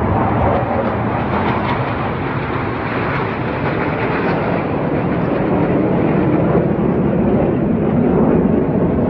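Jet noise from KAI T-50B jets passing overhead in an aerobatic display. It is a loud, steady rush whose pitch falls gradually as they go by.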